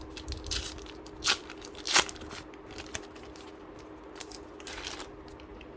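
A foil flow pack of trading cards being opened and handled: three sharp crinkles of the wrapper in the first two seconds, then softer rustling near the end, over a faint steady hum.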